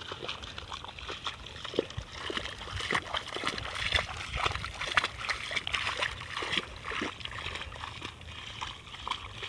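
Wet mud and shallow water sloshing and splashing as a long-handled hoe is pushed and dragged through a flooded rice seedbed to level it, in a run of short, irregular splashes.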